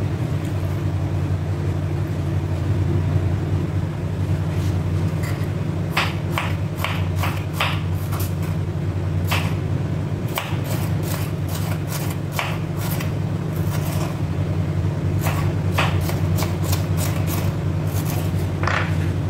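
Kitchen knife slicing radishes on a wooden cutting board: a run of quick taps, a few a second, from about six seconds in until near the end, over a steady low hum.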